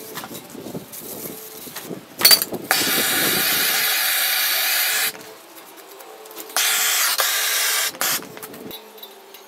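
Handheld gas torch hissing steadily as it heats a steel saw blade, in two runs of about two and a half and one and a half seconds that start and stop abruptly, with a sharp click and short burst just before the first.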